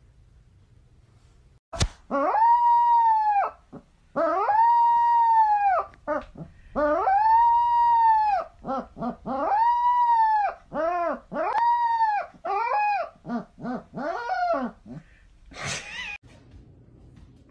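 A puppy howling. A run of long, pitched howls of about a second and a half each gives way to shorter, quicker howls that stop about fifteen seconds in. A sharp click comes just before the first howl.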